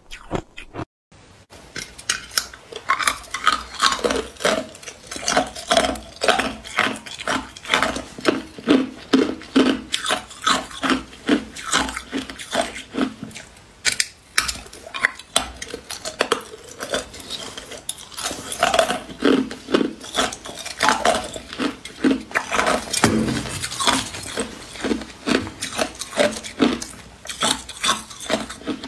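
Hard ice being bitten and chewed close to the mic: a dense run of sharp cracks and crunches, several a second, as chunks are broken off a block of ice cubes frozen together and ground between the teeth. A brief break about a second in.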